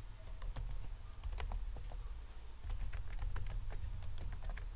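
Computer keyboard keys clicking in an irregular run of keystrokes as a terminal command is typed, over a low steady hum.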